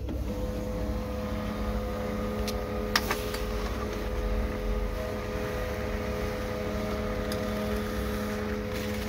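HP LaserJet M1005 MFP laser printer running a test page: a steady motor hum as the sheet feeds through and out, with a few clicks, the sharpest about three seconds in. The printer is printing normally, its toner-cartridge sensor just reseated to clear a "No print cartridge" error.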